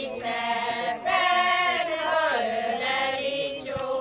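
A group of older women singing a Hungarian folk song together in unison, in short phrases with brief breaks between them.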